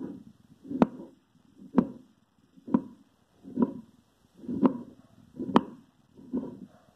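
Chef's knife chopping a tomato on a wooden cutting board: the blade knocks on the board about once a second, seven strokes in all.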